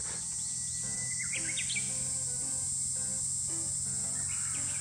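Light background music with short repeating notes over a steady high insect drone, with a few brief bird chirps about a second in.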